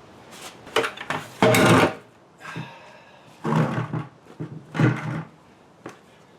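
A series of about six scrapes and knocks from metal motorcycle parts and tools being handled, the loudest and longest about one and a half seconds in.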